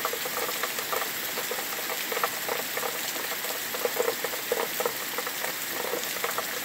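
Steady rain falling, an even hiss with many close drops ticking irregularly on nearby surfaces.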